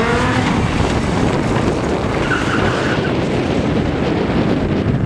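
Rally car engine running hard as the car slides across a loose dirt course, with a steady rush of tyre and gravel noise and a brief higher squeal about halfway through.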